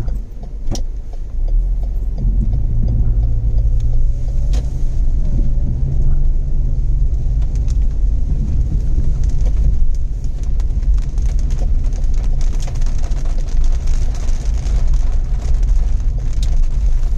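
Car driving in the rain: a steady low engine and road rumble with an even hiss of rain and wet tyres, and two sharp clicks in the first five seconds.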